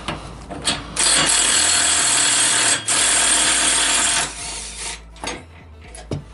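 A handheld power tool runs in two bursts, about two seconds and then about a second, driving a lawn mower's blade bolt back in. A few light knocks follow.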